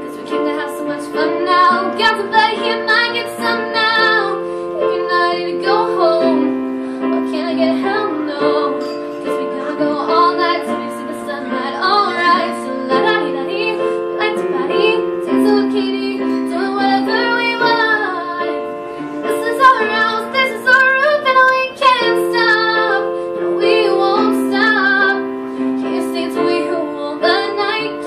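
A girl singing while she accompanies herself on a keyboard, with held piano chords that change every second or two under the vocal line.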